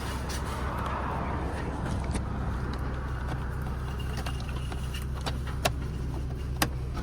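Scattered light clicks and taps of plastic steering-wheel trim pieces being handled and fitted into place, over a steady low hum.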